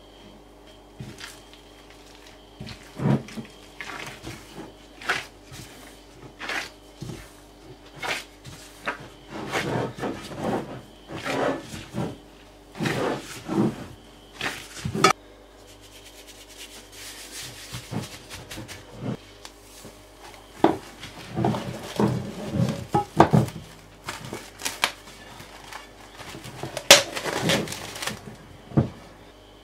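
Bread dough being mixed and kneaded by a gloved hand on a ceramic plate: irregular slaps and knocks of dough and hand against the plate, in two busy spells. Near the end a louder crackle as plastic cling film is stretched over the plate.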